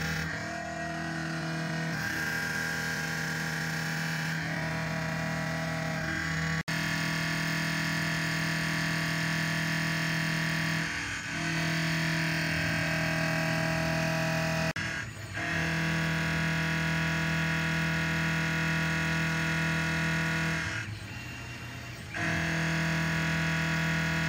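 Small benchtop CNC machine running, with a steady motor and spindle whine made of several fixed tones; the sound breaks off and changes abruptly a few times as the clips are cut together.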